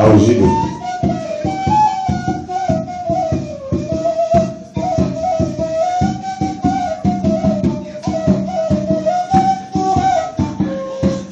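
Live band playing an instrumental passage: a high melody line sliding from note to note over a steady, busy beat of struck percussion, with one loud hit at the start.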